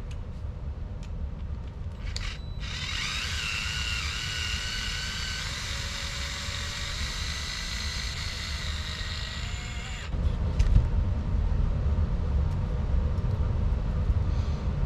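A small motor whining steadily for about seven seconds, starting a couple of seconds in, over a low rumble that grows louder near the end.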